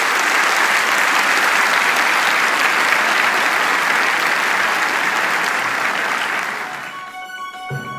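A large auditorium audience applauding steadily, fading out near the end as music begins.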